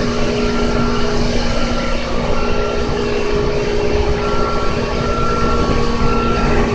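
Interior running noise of a Meitetsu 6000 series electric train at speed between stations: a steady rumble of wheels on rail, with a constant low hum and a higher tone that fades in and out.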